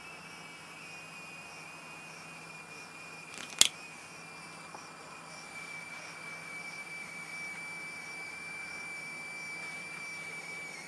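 Crickets singing at night: a steady high-pitched trill with a fainter, evenly pulsing chirring above it. A single sharp click cuts in about a third of the way through.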